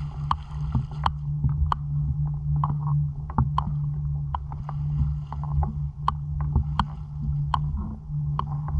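Pool water lapping and sloshing against an action camera's waterproof housing at the water surface, heard muffled through the case as a steady low rumble with frequent small sharp slaps and clicks of ripples hitting the housing.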